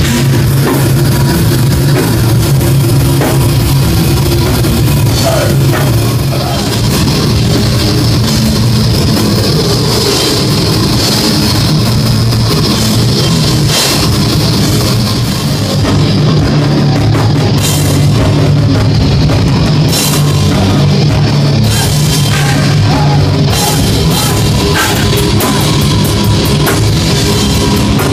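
Heavy metal band playing live, with a drum kit and guitars, loud and dense throughout.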